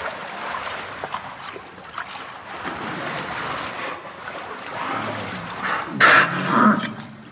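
Steady splashing and water noise, then about six seconds in a sudden loud burst of breath from a dolphin's blowhole, followed by a brief pitched sound, as the dolphin is held in shallow water for fin marking.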